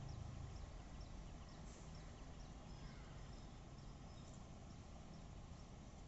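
Faint low rumble of a passenger train's coaches rolling away on the rails, fading slowly after the start, with short high chirps scattered throughout.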